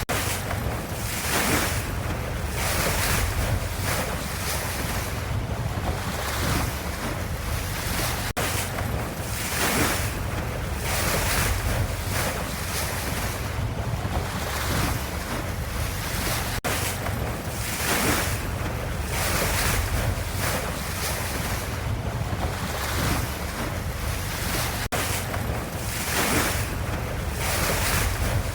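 Ocean wave ambience: a continuous rush of water that swells about every second and a half, over a steady low rumble.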